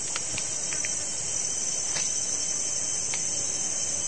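Steady, high-pitched chorus of forest insects, running on without a break.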